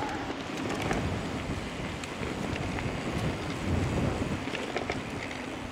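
Wind buffeting the camera microphone as an electric mountain bike rolls along a dirt trail strewn with pine needles, the knobby tyres rumbling over the ground, with small scattered ticks and rattles from the bike.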